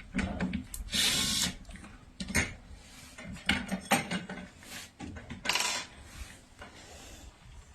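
Tool work: a few short bursts of a power tool with knocks and handling noises between them.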